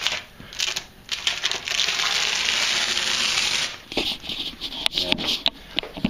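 Blue masking tape being peeled off in a long strip, a steady tearing hiss for about two seconds. Before and after it, shorter rips and crinkling as the tape strips are handled.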